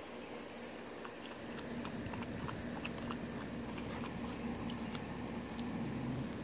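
Puppies crunching dry food from bowls: many small scattered crunches and clicks. A low rumble comes up underneath about two seconds in.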